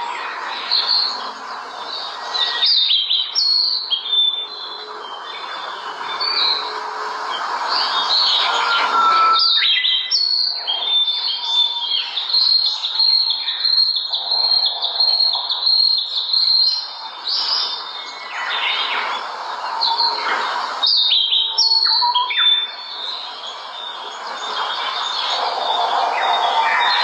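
Small songbirds chirping and singing, many short high-pitched calls and trills overlapping, over a steady background hiss.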